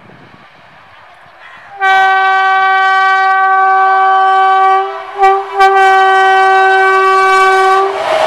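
Electric locomotive's horn sounding a long steady blast of one pitch for about three seconds, breaking off briefly with a short toot, then held again for more than two seconds. As the horn stops near the end, the rush of the approaching train rises.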